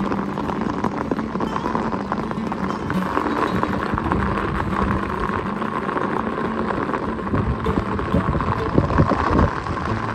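Footsteps walking along a wet paved road, with rain falling.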